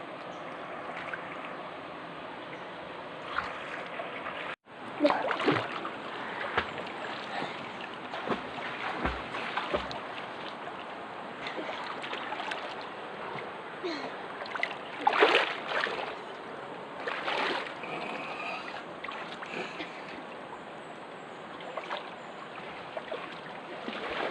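River water running with a steady rush, broken by irregular splashes. The sound cuts out for an instant about four and a half seconds in.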